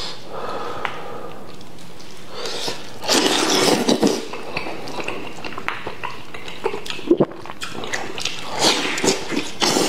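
Close-up eating sounds of a person biting into and chewing a sticky braised beef rib: wet slurping, sucking and smacking, with clicks from the mouth and the meat tearing. The loudest of these come about three to four seconds in and again near the end.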